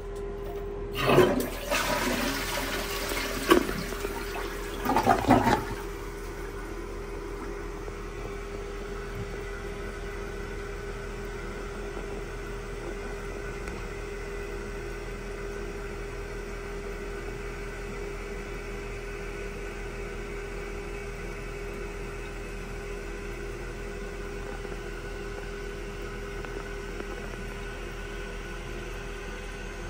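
Toilet flushed by its handle: a rush of water draining out of the tank for about five seconds, with the loudest surges near the start and near the end. After that a steady, quieter hiss of water as the newly fitted Kohler silent fill valve refills the tank.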